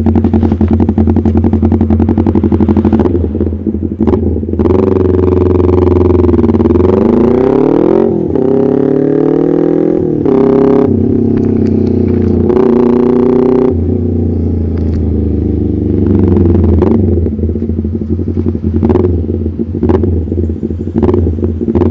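Carbureted Kawasaki Ninja 250R parallel-twin engine through an SC Project aftermarket exhaust, ridden along. It runs loud and steady, then in the middle its pitch climbs and drops several times as it is revved up and eased off, before settling again.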